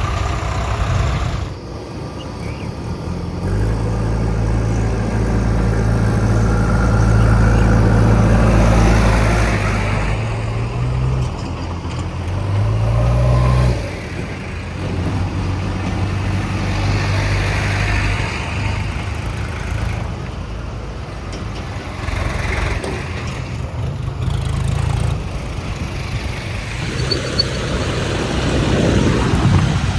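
Diesel engine of a JCB 3DX backhoe loader running loudly under load while it works the mud, held at high revs for several seconds, then its pitch dropping and rising again before it settles back to a lower, uneven run.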